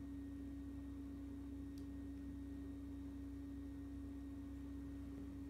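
A steady low-pitched hum with one unchanging tone, faint room tone, with a single faint tick nearly two seconds in.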